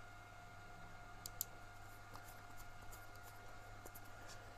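A few faint clicks from handling the pistol with its fitted grips, over a steady low electrical hum.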